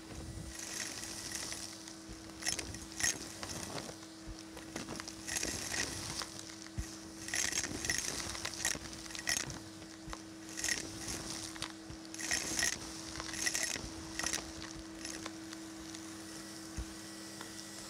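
Vacuum cleaner running with a steady hum while its wand sucks fluff, small debris and coins off a carpet. The pickings rattle and clink up the tube in repeated short bursts.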